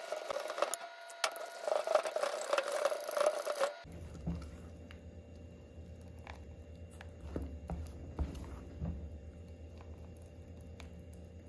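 Wire whisk beating flour and water into batter in a stainless steel bowl, scraping and clicking rapidly against the metal for about four seconds. It stops suddenly, followed by a quieter stretch of low hum and a few faint ticks as the thick batter is poured back into the bowl.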